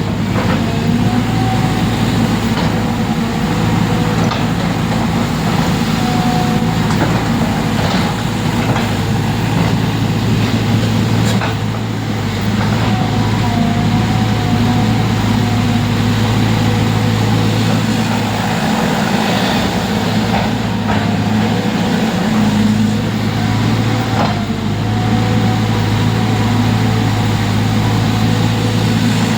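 An engine running steadily with a low hum, with a few brief knocks over it.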